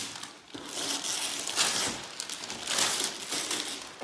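Gift wrapping paper and tissue paper being torn and crumpled as presents are unwrapped, in uneven bursts of rustling.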